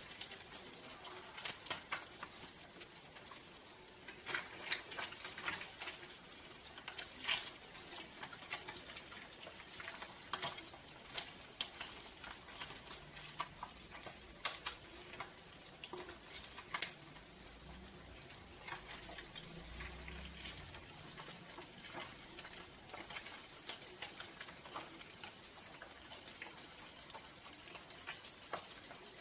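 Fish frying in hot oil in a wok: a steady sizzle with frequent sharp crackles and pops.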